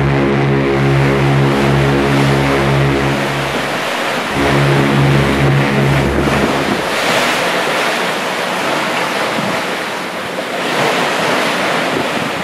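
A boat engine droning steadily, cutting out about three and a half seconds in, coming back briefly and stopping after six or seven seconds. Then sea waves washing, with wind on the microphone, swelling twice.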